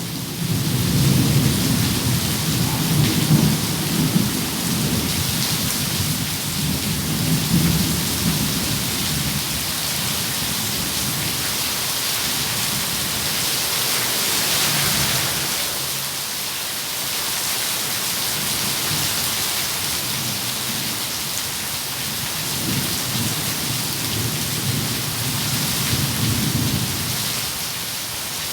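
Steady rain falling, with thunder rumbling low through the first several seconds, fading, then rolling again near the end.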